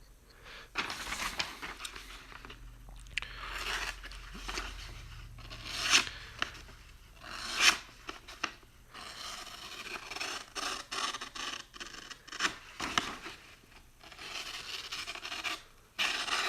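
Freshly sharpened Kershaw 3410 folding knife blade slicing through paper: a series of irregular scraping, rustling cuts with a few sharper rips.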